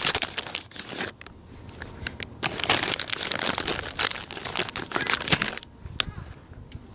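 Plastic snack bag crinkling in two stretches, the first about a second long, the second from about two and a half seconds in to near the end: a bag of crackers being handled and rummaged in.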